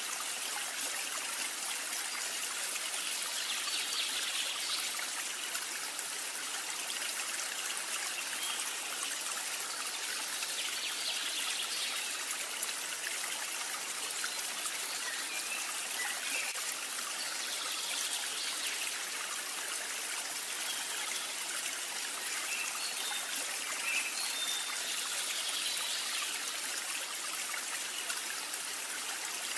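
Steady, even hiss like running water, with faint short high chirps now and then.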